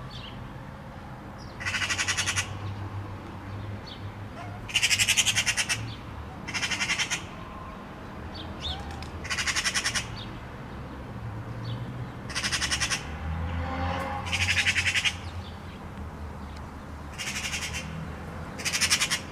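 Eurasian magpie chattering: about eight harsh, rapid rattling calls, each under a second long, a couple of seconds apart. Faint small chirps from other birds come in between.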